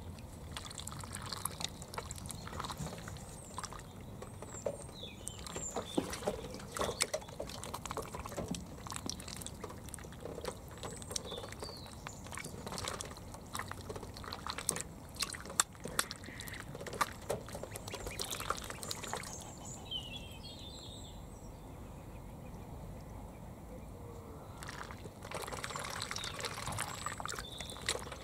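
Indian Runner ducklings splashing and dabbling in a shallow tray of water, a constant patter of small splashes with scattered high peeping calls. The splashing eases off for several seconds in the later part, then picks up again near the end.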